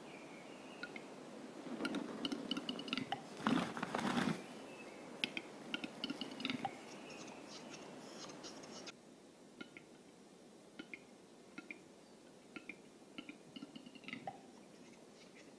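Western capercaillie lek: dry clicks and scratchy, scraping notes of displaying males. A louder rustling flurry comes about two to four seconds in. After about nine seconds the background drops and only sparser clicks remain.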